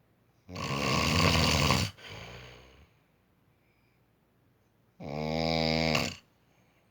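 A sleeping person snoring loudly, two snores about four seconds apart. The first is rough and noisy, trailing off into a quieter breath; the second has a steady buzzing pitch.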